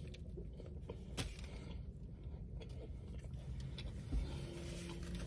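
Low steady rumble inside a car cabin, with a few faint clicks and crunches of a bite of lettuce-filled wrap being chewed.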